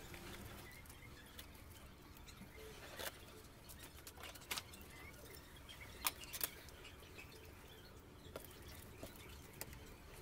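Faint handling noise of thread being wound and pulled tight around a bamboo bow's grip: light rustling with a few small sharp clicks, the clearest about three, four and a half and six seconds in.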